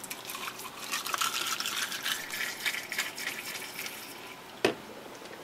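Squeeze wash bottle spraying MilliQ water in uneven spurts onto glass slides in a polypropylene container. A single sharp knock comes near the end.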